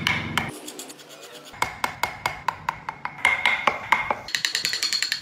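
Carving chisel cutting into wood in quick repeated strokes: a rapid run of sharp clicks and taps, several a second, with a slight ringing. The strokes pause briefly about half a second in, then resume and turn higher-pitched near the end.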